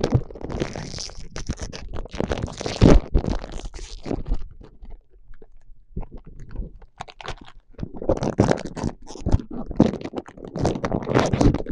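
Packaging of a Fedon Pitaki mini pie being torn open and handled: irregular crinkling and crackling in bursts, with a quieter spell in the middle and low bumps from handling.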